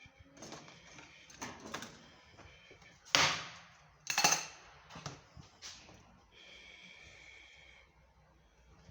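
Knocks and clatter of washing machine parts being handled during disassembly, with two sharp loud knocks about three and four seconds in, then a steady high whir for about a second and a half.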